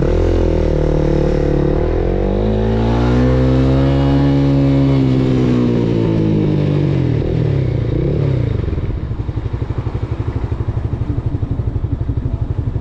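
Motorcycle engine revving up as the bike accelerates, its pitch climbing for about four seconds and then falling back as it slows, before settling into a low, pulsing idle for the last few seconds.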